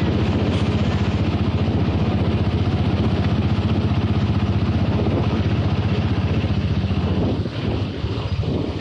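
A small engine running steadily close by, a low even drone, until it drops away about seven seconds in. Wind and rough surf take over near the end.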